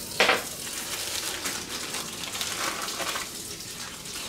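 A sharp knock just after the start, then a kitchen sink tap running steadily.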